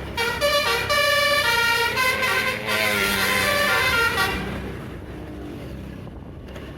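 Tour bus's basuri musical horn ('telolet') playing a quick tune of stepped notes, stopping about four seconds in; bus engine and road rumble carry on beneath.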